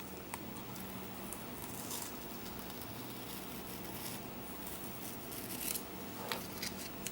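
Painter's tape being peeled off a metal placard: a faint rustling with a few small ticks in the second half, over a steady low hum.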